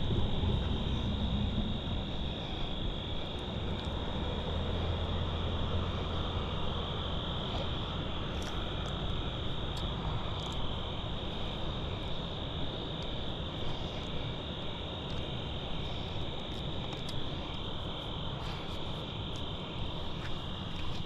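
Steady, high-pitched chorus of evening insects. A low drone runs underneath for the first several seconds, and a few light clicks and taps come later.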